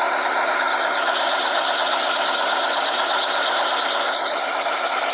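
Helicopter sound effect: a steady, fast-repeating mechanical clatter of rotor and engine.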